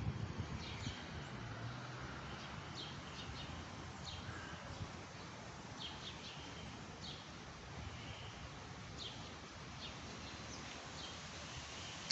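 Wind blowing steadily with small birds chirping: short, high chirps repeating irregularly, about one every second or two.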